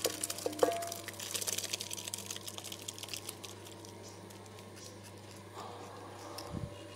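Thick cooked bamboo shoot curry sliding out of a tipped clay pot into a steel bowl, a dense patter of small wet clicks that thins out after about three seconds. A faint steady hum runs under it, with a soft thump near the end.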